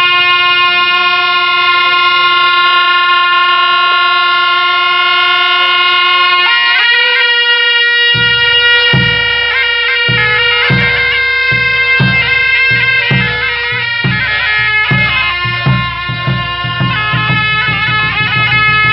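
Tibetan Buddhist ritual music: a reedy shawm (gyaling) holds one long steady note, then from about six seconds in plays an ornamented melody. From about eight seconds a large drum hung in a frame joins with steady deep strokes, a bit more than one a second, which grow busier near the end.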